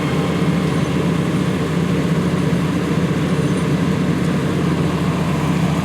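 Diesel engine of heavy harvest machinery running steadily under load, a constant low hum.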